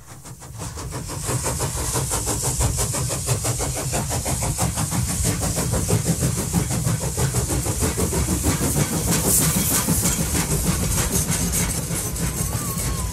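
Steam locomotive chugging sound effect, a fast, even rhythm over a low rumble, fading in from silence.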